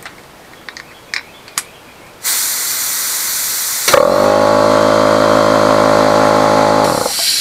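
A few light clicks as an air nozzle is fitted to the hose of a Husky air compressor, then a blast of compressed air from the nozzle: a loud hiss that turns into a steady whistling tone for about three seconds, then hisses again and tails off near the end.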